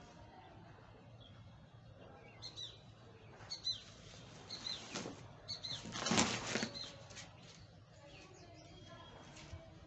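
A cardboard box is handled and set down on a concrete floor, with a louder rustle and scrape about six seconds in. Short falling bird chirps come in the background a few seconds in.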